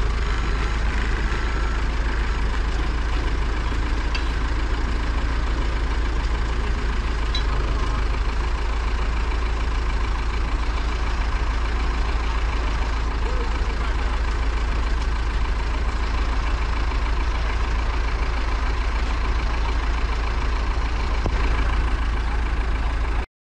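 Heavy machine engine idling steadily, a constant low rumble that holds its pitch throughout. The sound cuts out abruptly at the very end.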